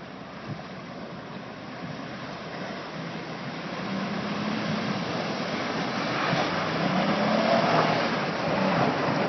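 Jeep driving through creek water: the engine runs under a rushing, splashing noise that grows steadily louder.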